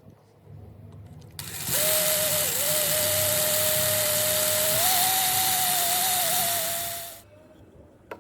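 A small handheld electric power tool running for about six seconds: a steady motor whine over a loud rushing hiss, switched on abruptly and running down at the end, its pitch stepping up slightly partway through.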